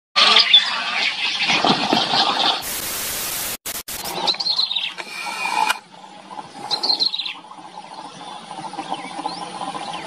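Birds calling: harsh, busy chatter for the first two and a half seconds, then a burst of flat hiss that cuts off abruptly, then two high calls that fall in pitch, about four and seven seconds in.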